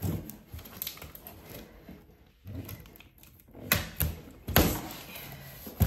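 Shipping package being opened and its contents handled: rustling with several sharp clicks and knocks, the loudest from about three and a half seconds in.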